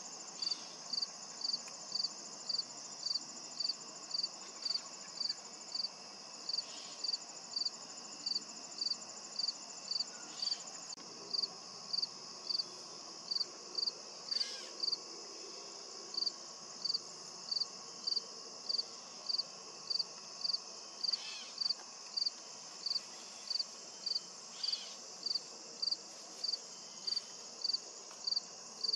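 Crickets chirping steadily, one high chirp about twice a second, over a continuous higher insect trill that stops about a third of the way through.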